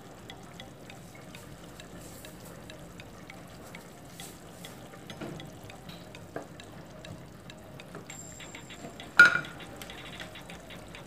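Chicken and vegetable chop suey sizzling softly in a pot while it is stirred with a spatula, with one sharp clack of utensil on pot about nine seconds in.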